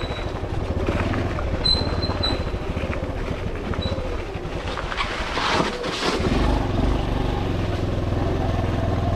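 Motorcycle engine running at low speed as the bike rolls over a rocky dirt trail. About five seconds in the engine sound drops away under a burst of rattling and knocking from the rough ground, then picks up again about a second later.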